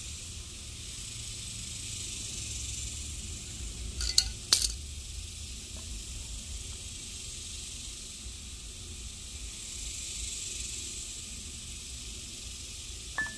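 Two sharp metal clinks about four seconds in as the halves of a cast-iron boat anchor are handled and screwed together on a threaded rod, over a steady hiss.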